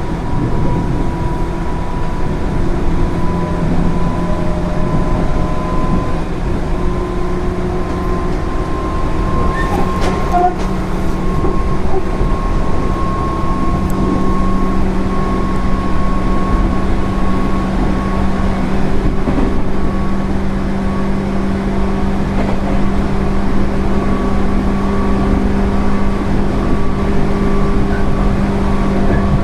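JR 205 series electric train running, with field-added-excitation-controlled DC traction motors and gearing humming in several steady tones that rise slowly in pitch, over a constant rumble of wheels on rail. A few faint clicks come about a third of the way in.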